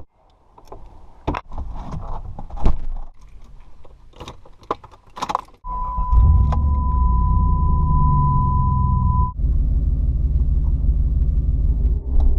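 Keys jangling and clicking, then about five and a half seconds in the Jeep's engine starts and runs, rising in revs once and settling. A steady high warning tone sounds for the first few seconds of running.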